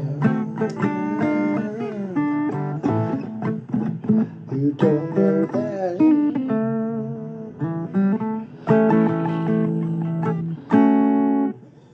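Blues guitar instrumental break: picked single notes with bent and sliding strings, ending on a loud held chord that breaks off shortly before the end.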